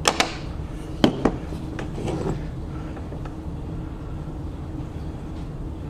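A few sharp clicks and knocks in the first second or so, then softer ones, as the plastic parts of a Singer 15-91 sewing machine foot pedal are pressed together and set down on the bench, over a steady low hum.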